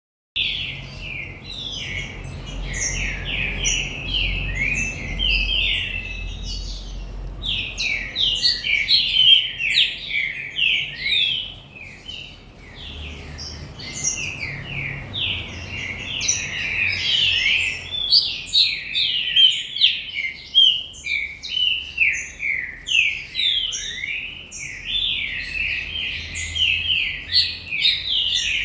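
Green-winged saltator (trinca-ferro) singing: a fast, continuous run of chirping notes that briefly drops in loudness about twelve seconds in.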